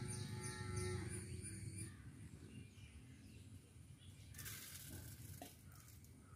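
Outdoor ambience with a high, rhythmic chirping about three times a second that stops about two seconds in, over a low rumble. A brief rustling hiss comes around four and a half seconds.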